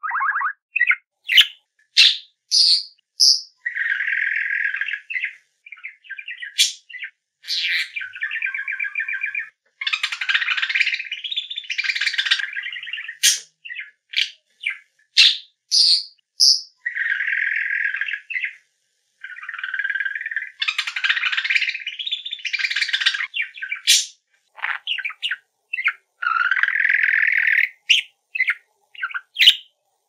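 A parrot calling in a quick, irregular series of short calls, alternating harsh squawks with high whistled chirps, and silent gaps between them.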